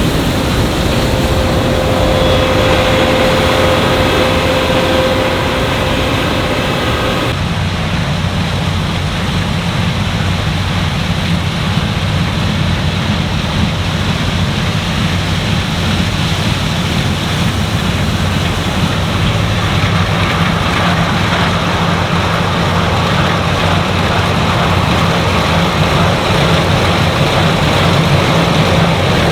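Claas Lexion 8900 combine harvester running steadily while harvesting wheat, its big diesel engine humming under the noise of the threshing machinery. About seven seconds in the sound changes abruptly, with the low engine hum coming to the fore.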